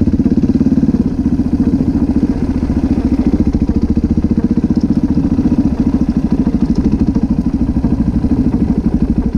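Dual-sport motorcycle engine running steadily under light throttle as the bike rolls slowly across gravel, with a rapid, even beat of exhaust pulses. It eases off slightly about a second and a half in.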